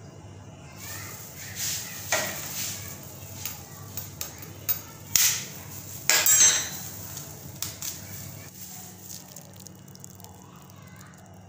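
Kitchen utensils and dishes knocking and clinking: a scatter of sharp hits, loudest about five to six and a half seconds in, over a low steady hum.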